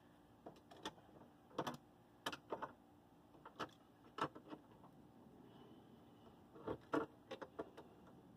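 Scattered light metallic clicks and clinks from a sheet-metal pulling clamp, its hook and a pair of pliers as they are fitted to a car's wheel housing, with a quick run of clicks near the end.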